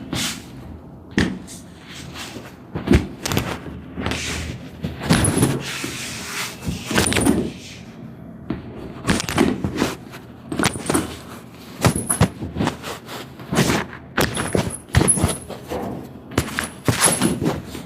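Irregular knocks, thuds and rustling from people shifting and handling on a treatment table during a chiropractic session.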